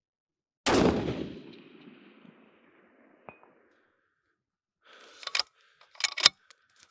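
Single 6.5 Creedmoor rifle shot: one loud crack that dies away over about two seconds. About two and a half seconds after it comes a faint ping, the bullet striking the distant steel target at 657 yards, then a few sharp clicks near the end.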